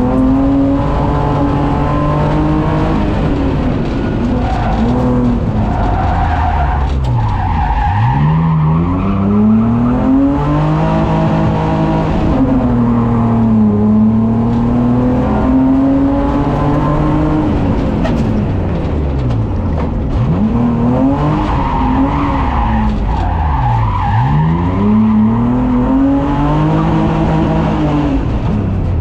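Race car engine heard from inside the cockpit at full competition pace, revs climbing and falling again and again. Several sharp dives in pitch, one about a third of the way in and two more past the two-thirds mark, each rising straight back up: hard braking and downshifts into tight corners, then acceleration out.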